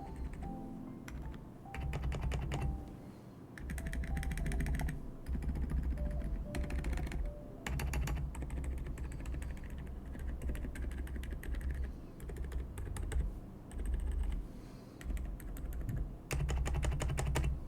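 Typing on a GMK67 mechanical keyboard fitted with unlubed Outemu Silent White switches and an extra foam layer in the case: keystrokes in quick runs and pauses, over background music.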